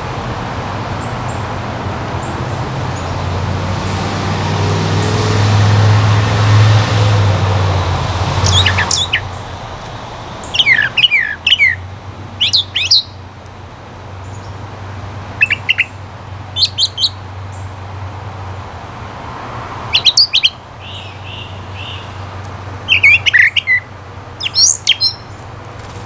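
A rush of passing traffic swells and fades over the first several seconds. Then a songbird sings short phrases of quick, high, falling notes, about eight phrases a second or more apart, over a steady low hum.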